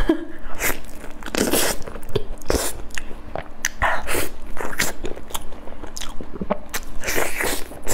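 A person biting and chewing soft durian flesh close to a clip-on microphone, heard as irregular short mouth clicks.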